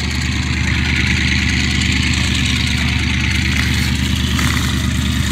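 An engine running steadily, a constant low drone, with a steady hiss above it.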